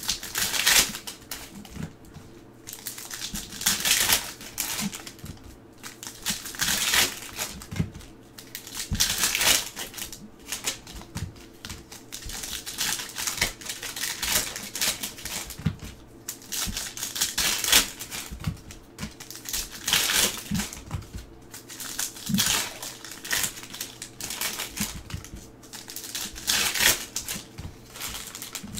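Foil trading-card pack wrappers being slit, torn open and handled, making repeated crinkling bursts a second or two apart.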